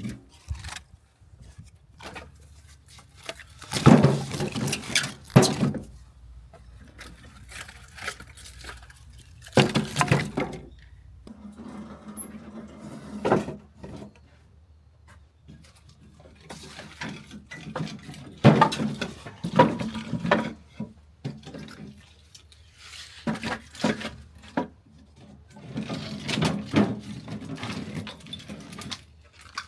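Water running and splashing in irregular bursts, with items being handled in between.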